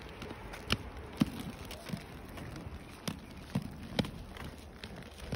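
Inline skates rolling over paving: a low rumble from the wheels, broken by about six irregular clacks as the skates strike and push off the ground.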